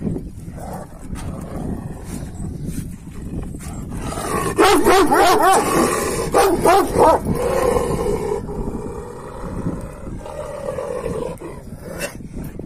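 Kangal dogs growling and snarling at each other. A loud run of wavering snarls comes from about four and a half to seven seconds in, followed by quieter growls.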